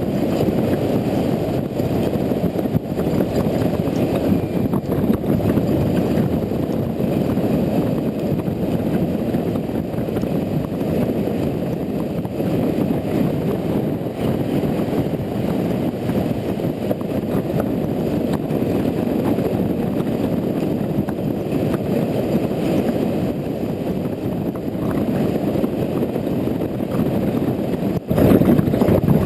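Riding noise from a Honda Integra NC750D motorcycle on the move: a steady, low rush of wind on the camera microphone over the engine and tyres. Near the end it drops out for a moment and comes back louder.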